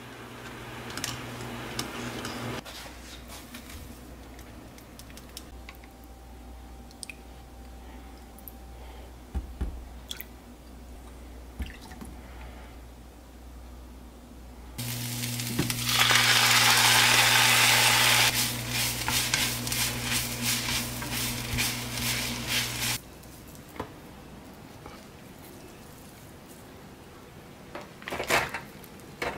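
Kitchen preparation sounds: scattered clinks and taps of dishes and utensils, with a spell of running water from about halfway in that is loudest for a couple of seconds and then trails off.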